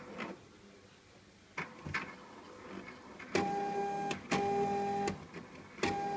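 Pitney Bowes DM100 franking machine's print mechanism running after a new ink cartridge has been fitted and the lid closed. A sharp click comes first and a couple of small clicks follow. From about halfway in, a motor whirrs in short runs of under a second, three times with brief pauses.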